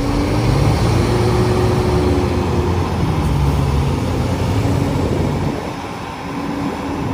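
Heavy diesel engines of a wheel loader and a dump truck running hard under load as the loader pulls the truck stuck in sand. The engine pitch rises about half a second in, and the sound eases briefly around six seconds.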